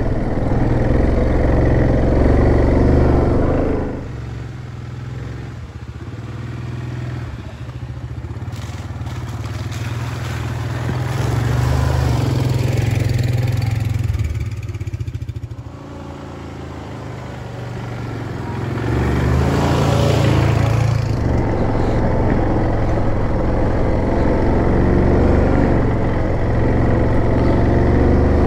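A Yamaha Grizzly 700 ATV's single-cylinder engine running while riding a forest trail. It drops to a quieter stretch about four seconds in and picks up again for the last third.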